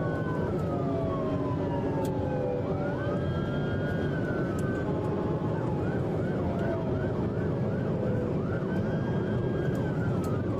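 Police car siren wailing in slow rising and falling sweeps, switching to a fast yelp about six seconds in, over steady engine and road noise from the pursuing cruiser.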